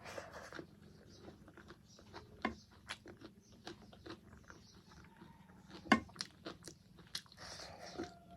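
Close-miked chewing of a person eating, with many scattered wet mouth clicks; the sharpest click comes about six seconds in.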